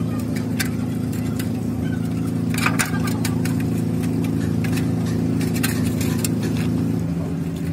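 Steady drone of an engine running, with scattered light metallic clinks and splashes as a steel gearbox gear is washed by hand in a metal basin of fluid.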